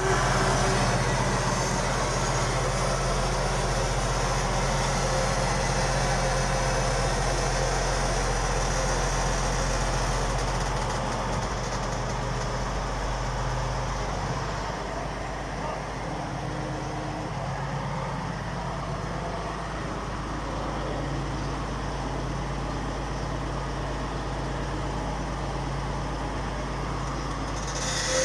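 Engine of an excavator-mounted drilling rig running steadily, a loud even drone that drops a little in level about halfway through.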